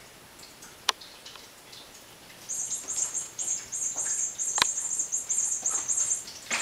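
A cat toy's high-pitched electronic chirping: a rapid run of evenly repeated chirps, about four a second, starting about two and a half seconds in and lasting nearly four seconds. Two sharp clicks, one about a second in and one in the middle of the chirping.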